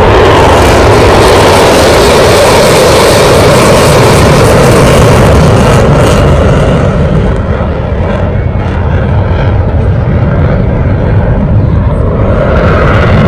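Military jet fighter flying past, its engine noise a very loud, steady rushing roar that eases slightly about seven seconds in.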